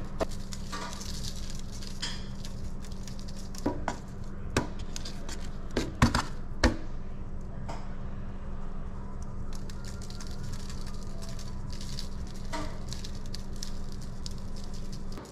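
Fish frying in hot oil, a steady sizzle over a low hum. A few sharp clinks of metal utensils or pans come between about four and seven seconds in.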